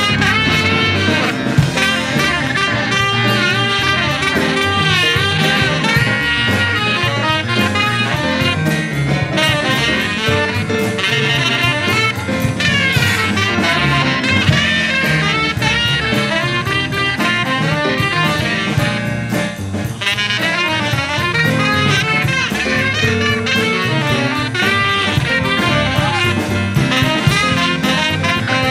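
Live small-group jazz: a saxophone plays a fast, running melody line over walking double bass, drum kit and keyboard.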